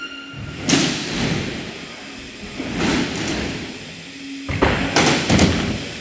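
BMX bike wheels landing and rolling on plywood ramps: a thud with a rolling rush about a second in, another near the middle, and a quick run of several thuds near the end.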